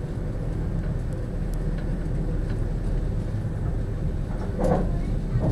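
Steady low rumble of a passenger sleeper train running along the line, heard from inside the carriage, with a constant hum over it. A short louder noise comes about four and a half seconds in.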